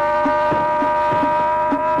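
Emergency alert attention tone: a loud, steady chord of several held tones that creeps up very slightly in pitch, with a rapid low pulsing of about three to four knocks a second underneath.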